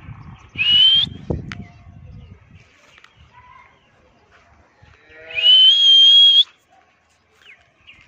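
A pigeon keeper gives two loud whistles to call his flying flock of pigeons down to the roost. The first is short and rising, about half a second in. The second is longer, rising and then held for about a second.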